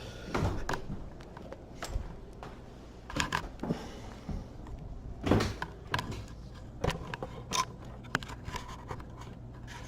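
Hands working on the oven's wiring and parts: scattered clicks, knocks and light scrapes, several to a few seconds apart.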